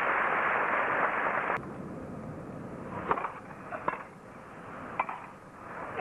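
Crowd applause that cuts off suddenly about a second and a half in. A tennis rally follows: sharp pocks of racket strikes on the ball about a second apart, three of them.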